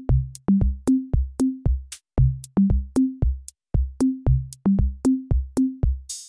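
Background electronic music: a fast, even drum-machine beat in which each hit carries a short, low pitched bass note.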